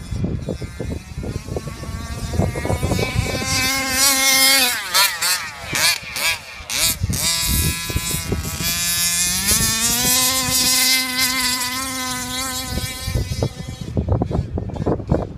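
Modified Revolver 32cc two-stroke engine of a gas-powered RC Baja running at high revs: a steady high-pitched buzz that wavers rapidly up and down through the middle as the throttle is worked, then holds high again and fades away near the end.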